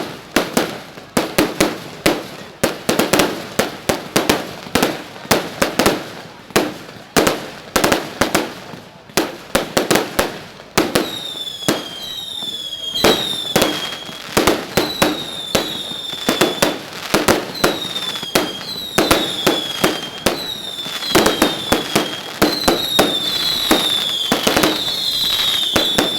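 Fireworks going off in rapid succession, with many sharp bangs, often several a second. From a little under halfway in, repeated high falling whistles join the bangs over a steadier wash of noise.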